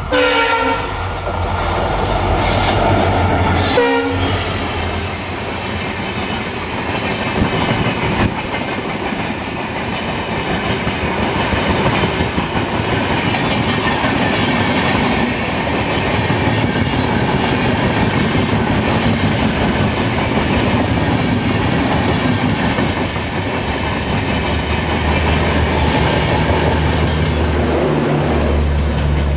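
Diesel locomotive sounds its horn for about four seconds as it approaches. It and a long rake of passenger coaches then pass close by, with a loud, steady rolling of wheels clattering on the rails.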